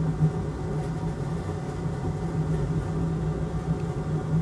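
Steady hum of a fume extractor fan running at the soldering bench, an even drone with a strong low tone and no change in pitch.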